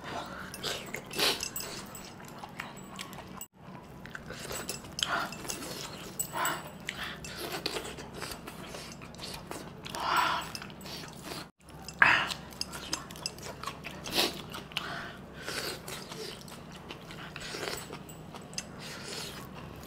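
Close-up eating sounds: a man chewing bone-in mutton and sucking the meat and curry off the bones, in irregular, uneven bites and sucks.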